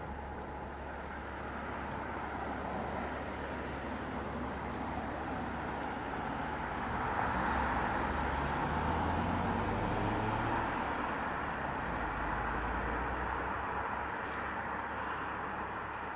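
An engine passing by, growing louder to a peak about halfway through, its pitch rising and then dropping as it goes, then fading.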